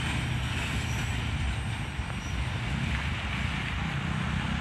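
Low, steady rumble of a loaded freight train's boxcars rolling away down the track.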